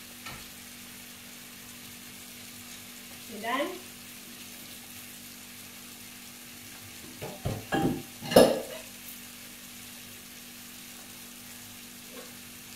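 Chicken pieces frying in a pan with a steady sizzle. A few sharp clanks of kitchenware come about seven to eight seconds in, the loudest near the end of that cluster.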